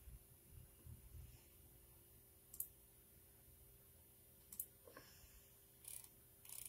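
Near silence with a few faint, sharp clicks spread through the second half.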